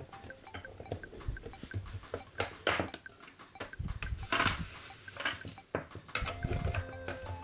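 Hard plastic toy parts clicking and knocking together in irregular handling sounds as pieces of a transforming toy base are pressed and snapped into place, with a louder clatter about four and a half seconds in. Background music comes back near the end.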